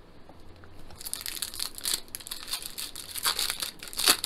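Foil wrapper of a Topps Chrome trading-card pack crinkling and tearing as it is ripped open, starting about a second in, with a sharp rip near the end as it gives way.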